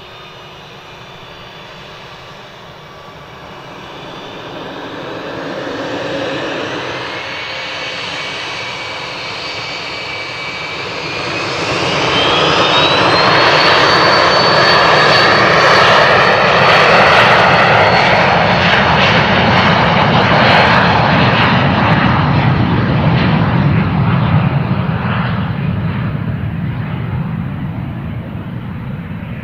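Jet aircraft's turbine engines spooling up: a high whine rises steeply in pitch and then holds while the engine noise swells to very loud at high power, then slowly fades away.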